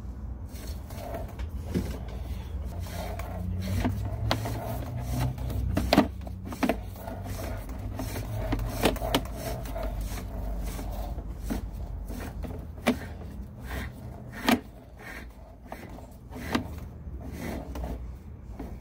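Sewer inspection camera push cable being fed down a drain line: a steady low rumble with scattered sharp knocks and rubbing clicks.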